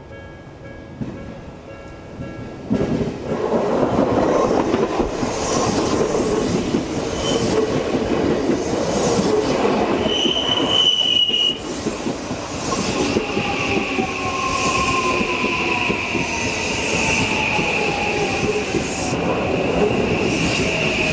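Odakyu Line electric train passing through a level crossing: after a few seconds of the crossing's warning bell, the train arrives about three seconds in with loud wheel clatter over the rail joints. A high wheel squeal comes in briefly, then runs steadily in the second half, along with a motor whine that slowly falls in pitch.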